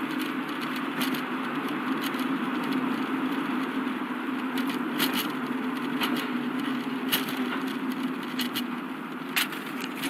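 Steady road and engine noise heard inside a moving car's cabin, with scattered sharp clicks and rattles, one louder click near the end.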